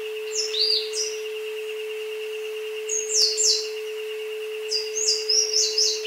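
Isochronic tone track: a steady electronic tone with a higher tone pulsing rapidly over it, mixed with recorded jungle birds. The birds give short falling chirps in bursts, about half a second in, around three seconds in, and a longer run near the end.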